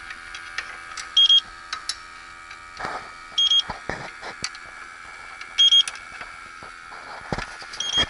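TIF ZX1 electronic refrigerant leak detector beeping about every two seconds, four short high beeps over a steady high whine, with scattered clicks and knocks from the probe being handled.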